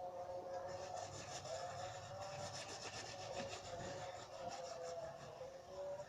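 Rapid rhythmic scraping of a utensil stirring liquid soap into foam in a container, starting about a second in, over a steady background hum.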